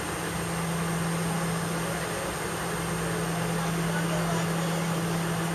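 Jet airliner cabin noise while taxiing: a steady rush of engine and ventilation noise with a low, steady hum.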